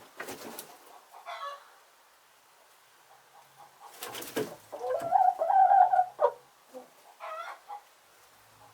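Hens clucking and calling, with a short noisy burst about four seconds in followed by a longer drawn-out call, the loudest sound, and a few shorter calls near the end.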